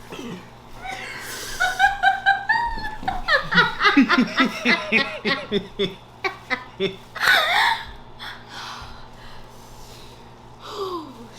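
A person laughing hard in a fast run of breathy pulses, then a loud high squeal a little past the middle, and a short falling cry near the end.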